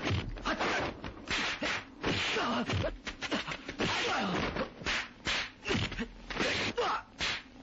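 A quick, irregular run of swishing whooshes and sharp whacks, like kung-fu film fight sound effects.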